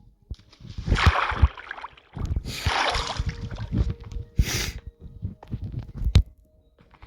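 A person sniffling and breathing in three noisy bursts, about a second and a half apart, with low thumps and knocks around them.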